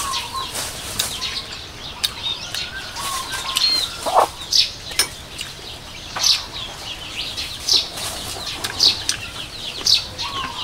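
Small birds chirping, short high chirps about every second, with a hen clucking now and then and a few sharp clicks.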